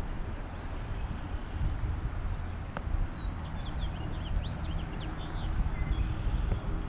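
Wind buffeting the microphone with an uneven low rumble. A small bird chirps a quick run of short high notes about three to five seconds in.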